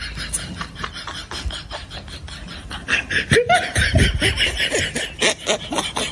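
Laughter in quick pulses, getting louder from about three seconds in.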